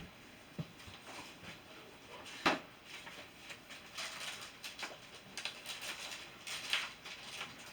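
Scattered light rustles and small knocks of things being moved and handled, with one sharper knock about two and a half seconds in.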